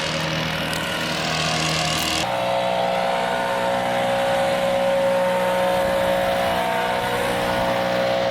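Engine running steadily, its tone changing about two seconds in.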